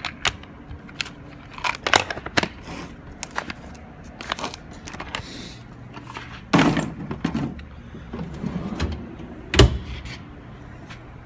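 Steel tool chest drawers and the metal tools in them being handled: a run of clinks and clatters, with a heavier knock about six and a half seconds in and a sharp, louder bang about nine and a half seconds in.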